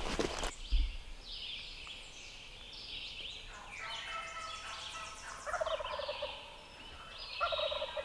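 Wild turkey gobblers gobbling in the distance: several rattling gobbles, some overlapping, the strongest in the second half. There is a brief rustle at the very start.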